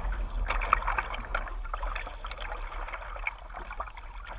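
Water splashing and trickling against a plastic kayak's hull as it moves through the water, in small uneven splashes over a low steady rumble.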